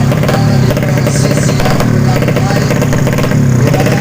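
Underbone drag-racing motorcycle engines running, mixed with a voice that is not clearly made out.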